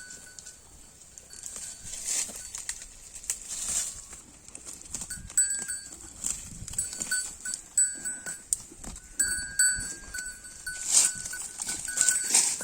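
Holstein Friesian cow tearing off and chewing grass: irregular crisp rips and crunches, a few louder ones near the end. Short, steady high tones come and go behind them.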